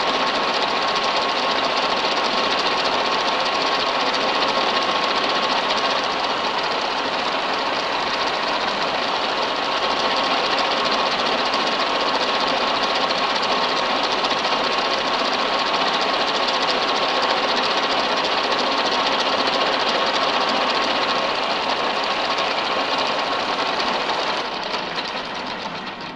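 Milling machine running with an end mill cutting a recess into a clamped metal workpiece: a steady whir carrying a constant high tone. It fades away near the end.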